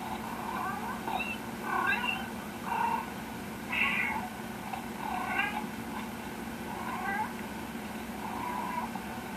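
Cat meows played back through a laptop's speakers: a string of short meows, roughly one a second, over a steady low hum.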